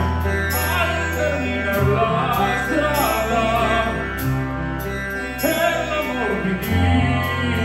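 A man singing in an operatic style into a microphone over a band's slow backing of long-held bass notes, amplified live through a concert PA. The bass note changes a couple of times beneath the voice.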